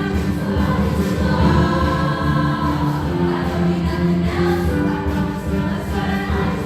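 Junior high choir singing in parts, holding long notes over backing music with a steady low beat.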